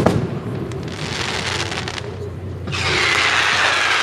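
Aerial fireworks: a shell bursts with a sharp bang at the start, and its rumble rolls away. About three seconds in, a hissing whistle starts suddenly, its pitch sinking slowly.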